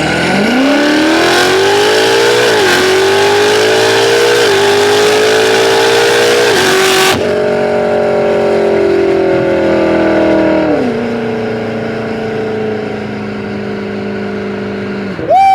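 Modified BMW F90 M5's twin-turbo V8 under hard acceleration, its pitch climbing and dropping back sharply at three upshifts about two seconds apart. About seven seconds in the rushing noise falls away and the engine note eases down, settling lower and steadier after about eleven seconds.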